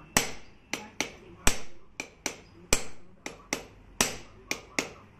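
Hand hammer beating on a metal part of an air cooler under repair: about a dozen sharp blows, irregularly spaced at two to three a second, each with a short ring.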